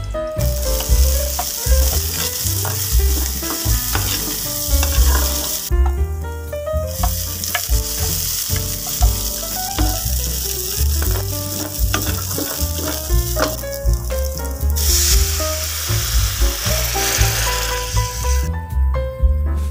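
Hot cooking oil sizzling in a frying pan, first around tofu and then around sliced shallots and red chilli. The sizzle breaks off for about a second about a third of the way through, is loudest shortly before the end, and stops near the end. Background music with bass notes plays throughout.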